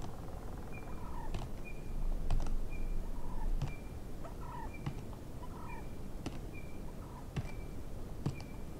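Gould's wild turkeys calling: a series of short notes, each a brief high note and a lower falling one, repeating about once a second. Sharp clicks fall in between.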